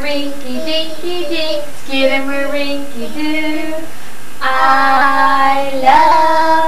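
A small child and a woman singing a song together, the second half louder, with long held notes.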